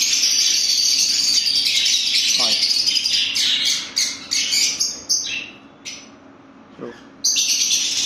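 Small cage birds in a breeding aviary chattering and chirping, a dense high twittering that breaks off for about two seconds near the end and then starts again. A few sharp clicks sound around the middle.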